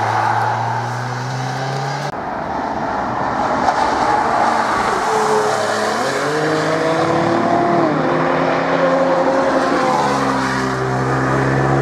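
Cars driven hard on a race track, their engines revving high. The engine pitch climbs for a few seconds as a car accelerates, drops sharply near the middle, and climbs again near the end.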